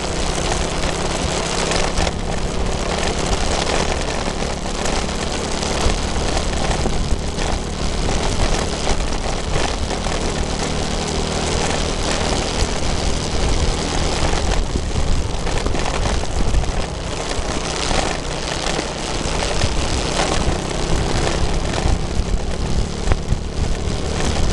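Steady wind rush over the microphone of a camera moving at speed, with a constant low engine hum and tyre noise on concrete road underneath.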